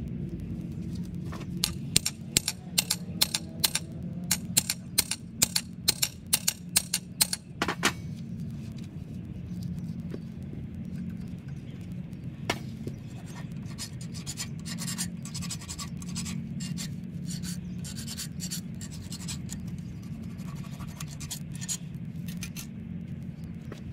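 A quick run of sharp scraping strokes, about three or four a second, for several seconds, then fainter, irregular scrapes and taps, over a steady low hum.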